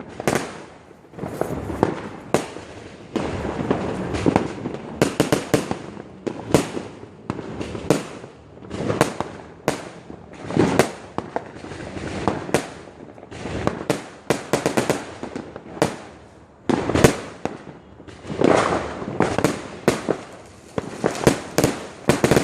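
Fireworks going off in a dense, continuous barrage: sharp bangs and popping crackles several times a second, with louder clusters around 10, 17 and 18 seconds in.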